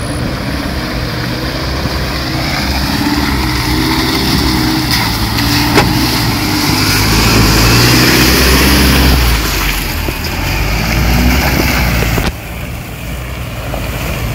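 A 4x4 SUV's engine revving hard in four-low second gear, working to carry momentum through a deep muddy rut. The engine note rises and falls, is loudest about eight seconds in, and drops away abruptly near the end. A single sharp knock comes about six seconds in.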